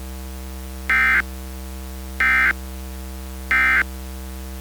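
Emergency Alert System end-of-message data tones: three short, identical bursts of warbling digital SAME code about a second and a half apart, over a steady electrical hum. They signal the end of the alert message.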